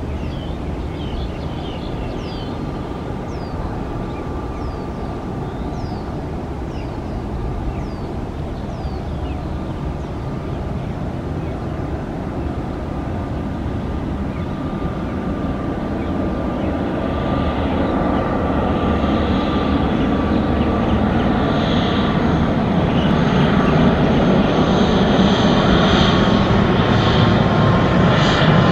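ATR 72-600 turboprop airliner on landing approach, its twin engines and propellers running as a steady hum with a thin steady whine. The sound grows steadily louder through the second half as the aircraft comes closer.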